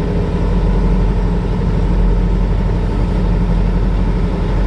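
Peterbilt semi-truck's diesel engine running steadily as the truck rolls slowly, heard from inside the cab as a low, even drone.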